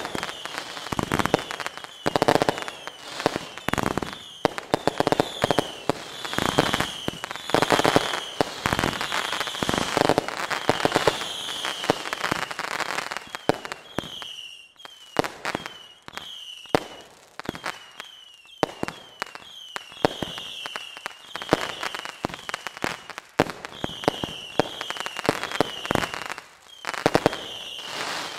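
Fireworks going off in a steady, irregular series of bangs, some followed by crackling. Short falling whistles recur throughout.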